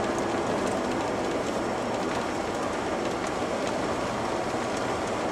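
Steady road noise inside a moving truck's cab: tyres running on a wet road and the engine droning at cruise, with a few small ticks here and there.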